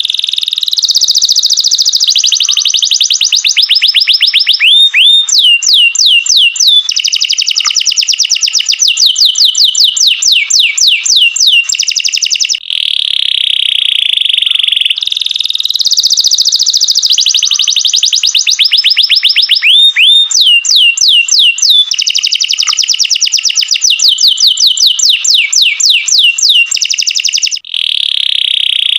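Domestic canary singing a loud, continuous song of long trills and rapid series of rising whistled notes. The same song passage comes around again about halfway through.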